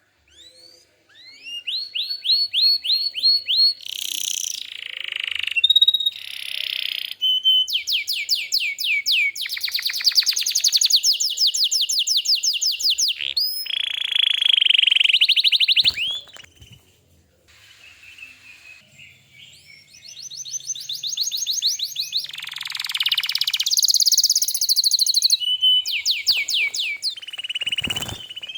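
Domestic canary singing: a long song made of runs of rapid, evenly repeated high notes and rolling trills, one phrase after another, with a short lull about halfway through.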